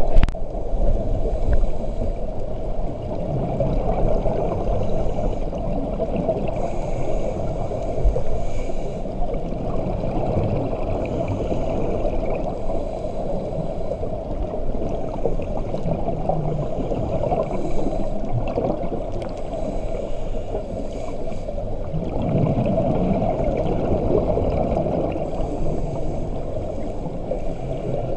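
Muffled underwater ambience picked up by a camera underwater during a scuba dive: a steady low rush of water with gurgling.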